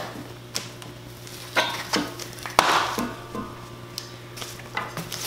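Plastic wrapping rustling and crinkling in short bursts, with a few sharp clicks as a zip tie is cut off the wrapped muffler tip.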